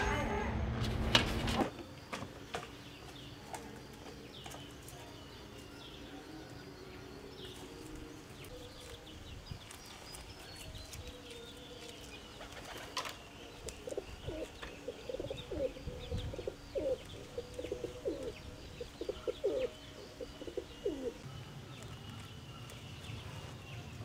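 Doves cooing: a run of short, low coos starting about halfway through and going on for several seconds.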